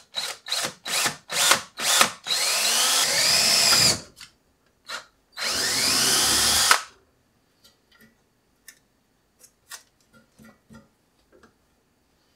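Cordless drill drilling small pilot holes into a computer case's hard-drive rack. It starts with several short trigger pulses, about two a second, then runs in two longer spells, its motor speed rising and falling. Only a few faint clicks follow.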